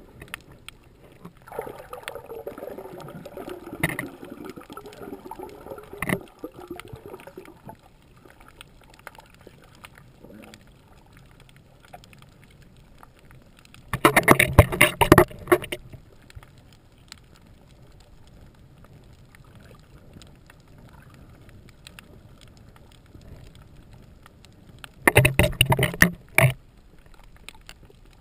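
Scuba diver's exhaled bubbles rumbling past an underwater camera in two bursts of one to two seconds, about eleven seconds apart, over a faint underwater hiss. A fainter sound with sliding tones comes in the first few seconds.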